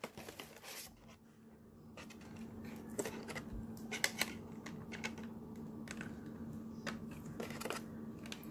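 Scattered light clicks and taps of a plastic insert tray being handled, as figures are moved about in it. A faint steady low hum runs underneath.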